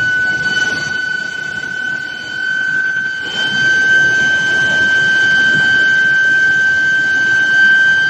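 Steel billet induction heating line running: a steady high-pitched whine from the induction heater, drifting slowly upward in pitch, over a constant mechanical rumble. It gets a little louder about three seconds in.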